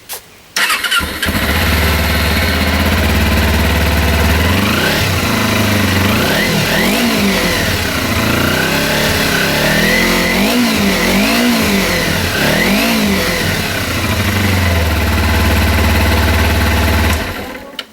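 Kawasaki Ninja 250R's parallel-twin engine, fitted with a Yoshimura Tri-Oval TRS slip-on exhaust, starting about half a second in and idling. It is then blipped through a series of short revs, settles back to idle, and cuts off about a second before the end.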